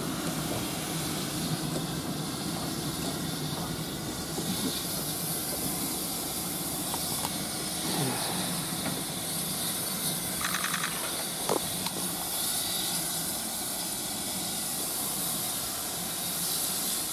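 GWR Castle-class 4-6-0 steam locomotive standing in steam, hissing steadily; the hiss grows stronger about four seconds in. A short run of rapid ticks comes a little past the middle.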